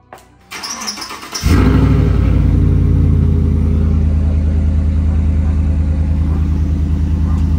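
A click, then the pickup truck's V8 engine is cranked by the starter for about a second before it catches at about a second and a half in. It settles straight into a loud, steady idle.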